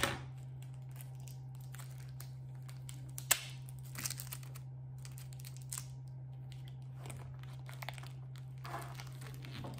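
Plastic packaging and a card packet crinkling and rustling in short, scattered bouts as they are handled, with a few sharp clicks and knocks, the loudest a little over three seconds in. A steady low hum runs underneath.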